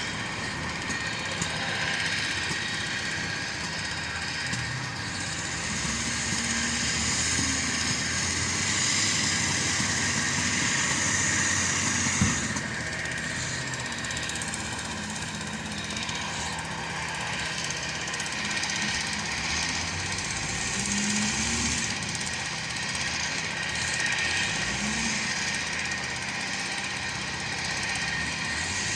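Heavy construction machinery such as an excavator or backhoe loader running under work, its diesel engine going steadily with a high hiss over it. There is a single sharp knock about twelve seconds in.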